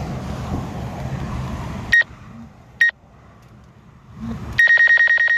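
DJI Mavic 2 Pro controller's obstacle-warning beeps, a high single tone: two separate beeps about two seconds in, then a fast unbroken run of about ten beeps a second near the end as the drone closes on a thin tree branch. Before the beeps, a steady rushing noise.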